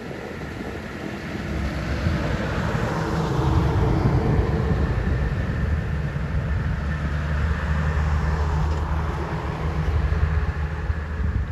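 A motor vehicle driving close by: a low engine rumble that builds over the first two seconds and then stays loud, with a falling whine a few seconds in as it passes.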